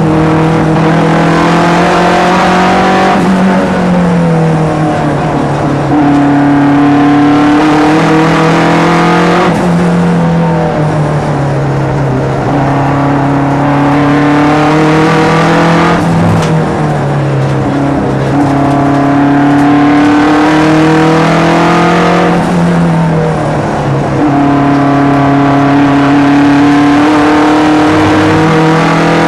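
SAAB 900 race car's turbocharged four-cylinder engine running hard, heard from inside the cabin. The engine note holds fairly steady and then shifts in pitch about every six seconds, five times in all, as the car works through the gears.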